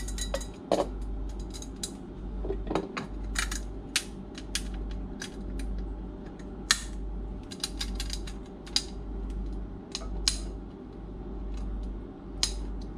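Scattered short clicks and knocks of a filter element and its black filter bowl being handled and screwed back onto the filter housing of a marine diesel generator, over a steady low machinery hum.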